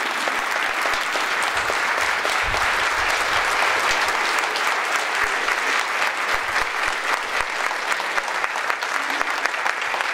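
Audience applauding steadily, a dense sustained clapping from a large room of people.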